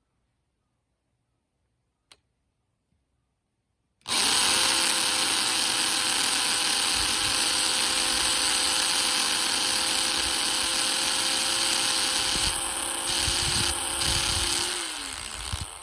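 Electric power drill starting about four seconds in and running steadily for about eleven seconds, a constant motor whine under a loud cutting noise, then winding down with a falling pitch and stopping near the end.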